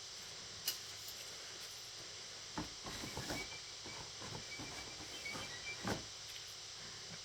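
Dishes and utensils knocking and clattering while being washed up, busiest in the middle of the stretch, over a steady hiss.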